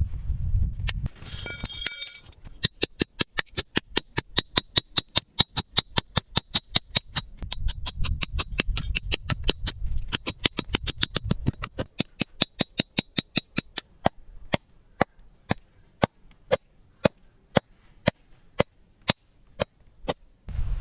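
Quick, even chopping strokes, about four a second, slowing to about two a second after the middle. A short metallic ring comes just before the strokes begin.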